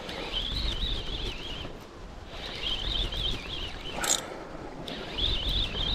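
Spinning reel cranked in bursts during a jigging retrieve, its gears giving a wavering high whine that stops and starts about every two seconds. A short sharp click about four seconds in.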